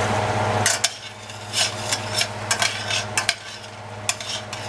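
Garlic, butter and bacon grease sizzling in a stainless steel pan while metal tongs stir it, clicking and scraping against the pan several times. A steady hum cuts off under a second in.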